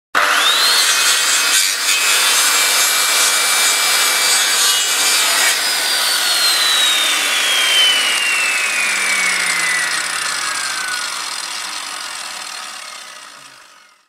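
Intro title sound effect: a loud, rough hissing noise with a thin tone that rises at the start, then slides slowly downward, the whole thing fading out to silence near the end.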